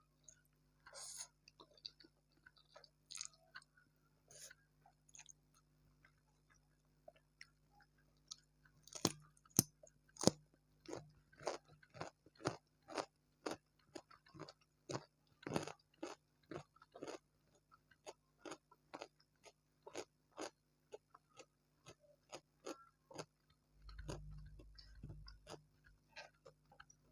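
Close-miked chewing of crispy tempura: a few scattered crackles at first, then steady crunching at about one to two crunches a second. A brief low rumble comes near the end.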